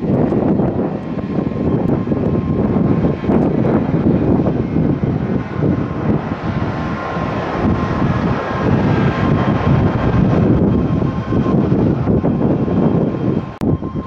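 Boeing 767 airliner's twin jet engines at takeoff power as it lifts off and climbs away: a loud, steady rumble with a faint whine that grows clearer in the second half. Gusty wind buffets the microphone.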